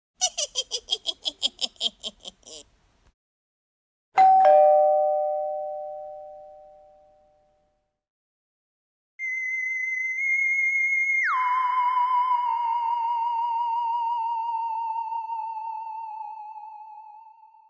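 Three Halloween sound effects in a row. First a cackling witch's laugh of quick pulses falling in pitch. Then a two-note ding-dong doorbell chime, then a warbling electronic sci-fi UFO tone that drops sharply in pitch partway through and fades away.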